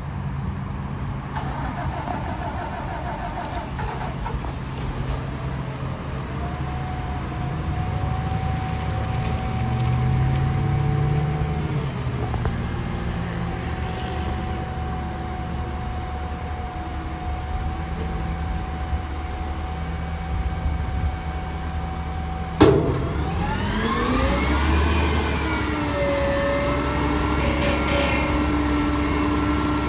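McNeilus garbage truck's engine running with a steady hydraulic whine. A sharp bang comes about three quarters of the way through, then the engine and hydraulics rise in pitch and settle into a higher, louder whine.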